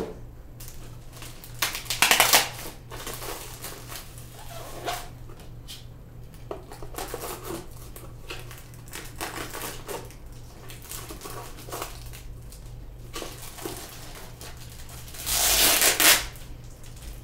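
Packaging of a boxed toy set being handled and unpacked: irregular rustling and clicking, with two louder rustling bursts about two seconds in and near the end.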